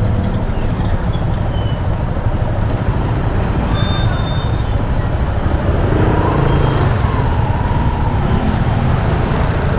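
Riding a motorcycle in traffic: a steady low rumble of engine, wind and road noise, with other vehicles around.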